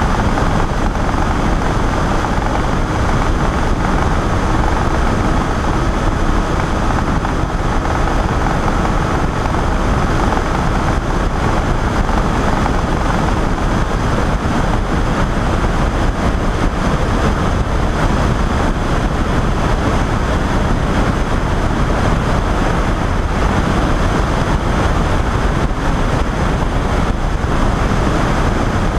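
Steady drone of a Pegasus flex-wing microlight trike's engine and pusher propeller in level cruising flight, mixed with wind rushing over the wing-mounted microphone.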